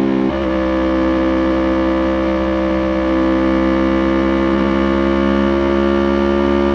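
2020 Yamaha YZF-R3's parallel-twin engine held at steady high revs, one loud, even engine note that barely changes in pitch, after a brief dip in revs right at the start.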